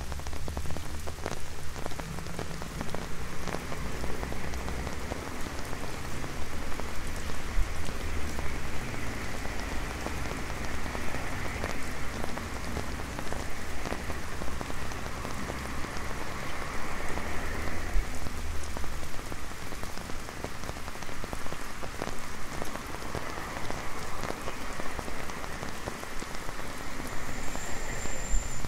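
Steady light rain falling on an umbrella held overhead, a dense run of small drop ticks over a constant hiss of rain on wet pavement. A low rumble sits underneath and fades out about two-thirds of the way through, and a brief high whistle sounds near the end.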